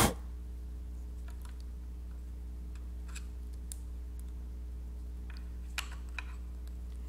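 A sharp click at the start, then scattered faint clicks and taps as a metal blade presses down the melted end of a paracord bracelet and knocks against the cord and plastic buckle. A steady low hum runs underneath.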